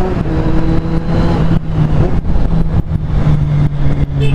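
Kawasaki Z750 inline-four motorcycle engine running under way, a steady engine note that steps down in pitch a couple of times.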